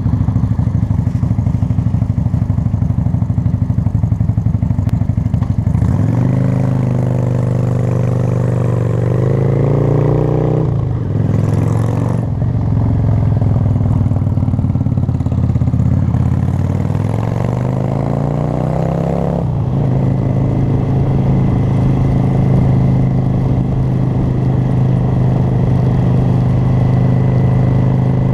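Cruiser motorcycle engine idling at a stop, then pulling away about six seconds in. Its pitch rises, breaks off briefly at a gear change, rises again, and from about twenty seconds the engine runs at a steady cruising speed.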